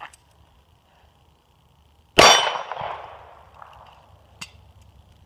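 A single shot from an H&K P30L 9mm pistol about two seconds in, followed at once by a steel target ringing out and fading over a second or so: a hit on steel. A couple of faint sharp clicks come before and after.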